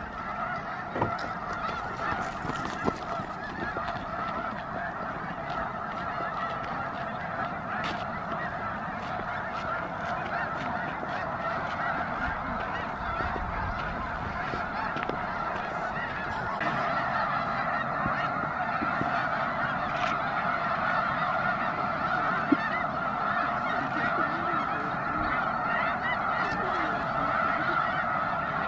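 A large flock of snow geese calling together, a dense, continuous chorus of honking that swells a little over halfway through.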